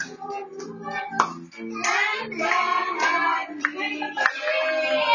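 A group of children and women singing a birthday song together, with a few scattered hand claps.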